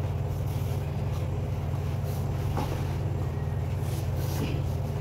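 Steady low mechanical hum, like a motor running, with a few faint taps about halfway through and near the end.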